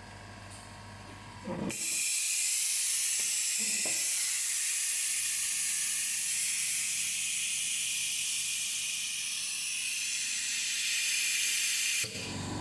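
A steady jet of air hissing, starting abruptly and cutting off abruptly about ten seconds later.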